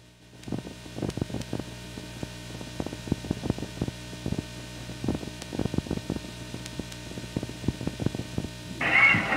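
Steady electrical mains hum with irregular clicks and crackles from the sound track of an old Super 8 film. Music comes in near the end.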